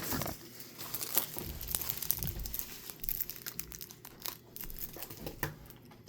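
Crinkling and tearing of packaging as a pack of game cards is worked open by hand: irregular small crackles and rustles throughout.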